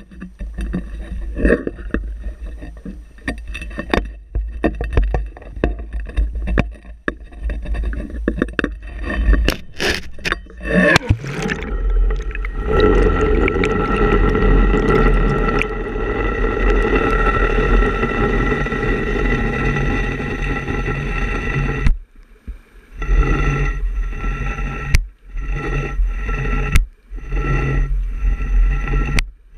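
Pole-mounted GoPro in its housing knocking and scraping against the boat's side, with a low wind rumble. About eleven seconds in it plunges into the water. After that the sound is muffled underwater noise with a steady hum of several tones, broken by a few short drop-outs near the end.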